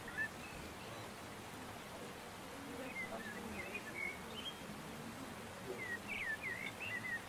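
Small birds chirping in a few short clusters of high twitters, about three seconds in and again near the end, over a steady hum of outdoor background noise.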